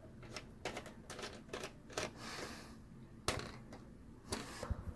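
Irregular light clicks and taps of a hand screwdriver and screws on a TV's metal chassis as a screw is driven into the main board's grounding standoff, with a short soft hiss about two seconds in.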